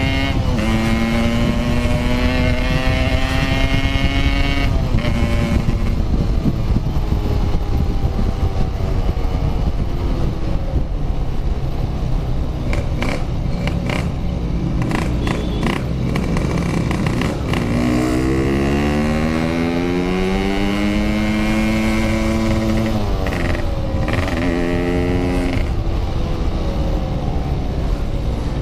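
Motorcycle engine revving hard under acceleration, its pitch climbing and dropping back at gear changes: one shift about five seconds in, a dip around seventeen seconds, then a long climb with quick shifts near the end. A steady low rush runs underneath.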